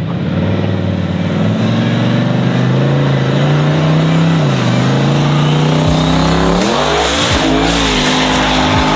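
Turbocharged Chevrolet Silverado V8 pulling hard at full throttle in a roll race. The engine note climbs steadily, drops at a gear change about four and a half seconds in, then climbs again with another shift at about seven seconds.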